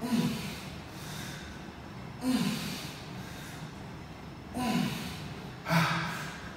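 A man's hard, forceful breaths out with a short grunt, four of them, about two seconds apart and the last two closer together: heavy breathing from the strain of fast dumbbell curls.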